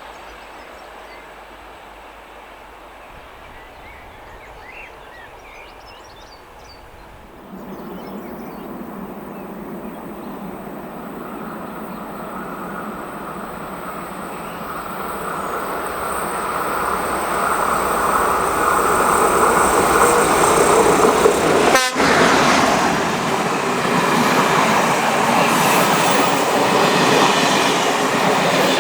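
Passenger train hauled by a Skoda 68E electric locomotive approaching and passing close by. After a quieter start with a few faint chirps, the sound steps up about a quarter of the way in and swells steadily to a loud rumble of wheels on rails in the second half.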